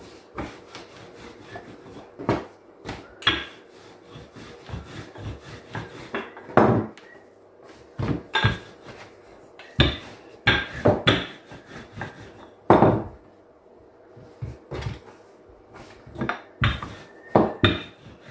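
Wooden rolling pin rolling out chapati dough on a countertop, with irregular sharp knocks as the pin strikes and rolls across the counter.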